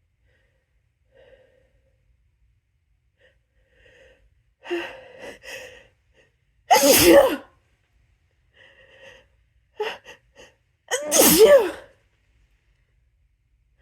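A person sneezing twice, loud and harsh, each sneeze preceded by a few quick catching gasps of breath. The sneezes are induced by tickling the inside of the nose with a paintbrush.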